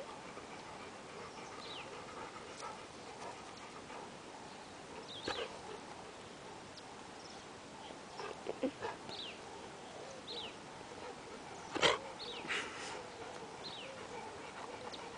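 Dog whining, a string of short high-pitched falling whines spread out over the time, with one louder sharp bark late on.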